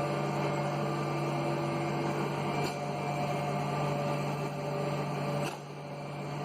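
Steady electric machine hum with a strong low tone and overtones over a faint noisy hiss. There is a faint click about five and a half seconds in, and the level dips slightly after it.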